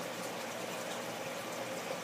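Aquarium aeration bubbling steadily, a stream of air bubbles rising through the tank water.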